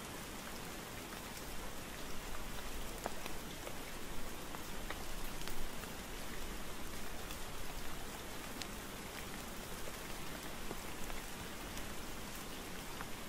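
Steady rain falling: an even hiss with scattered single drops tapping.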